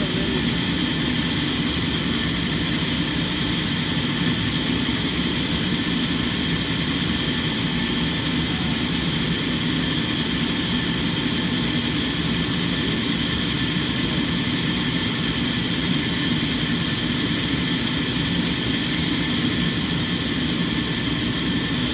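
Sawmill machinery running steadily, with a constant hum and whir that does not change in level or pitch.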